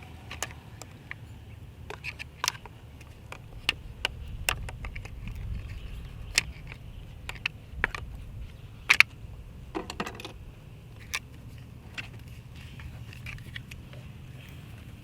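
Irregular metal clicks and clinks as a battery cable terminal clamp is worked loose from a battery post it has corroded onto and stuck to, over a steady low rumble.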